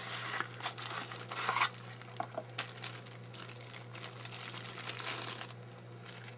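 Packaging being handled: the cardboard box sliding and a clear plastic bag crinkling and rustling as the Raspberry Pi mouse is taken out and unwrapped. The rustling stops about five and a half seconds in, leaving a faint steady hum.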